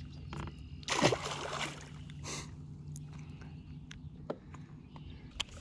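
A splash about a second in as a largemouth bass is dropped back into the water, then light sloshing and a few sharp clicks from handling a hollow-body frog lure, over a steady low hum.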